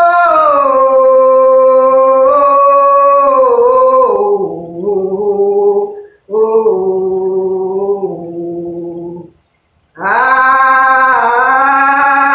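A woman's voice chanting light language: long, wordless held tones. They step down in pitch over the first few seconds, break off briefly about six seconds in and again near nine seconds, then resume higher near the end.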